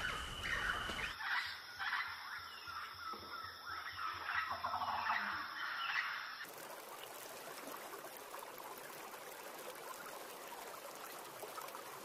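Birds calling over and over over a steady high whine. At about six seconds the sound cuts to a steady hiss of running water with faint chirps.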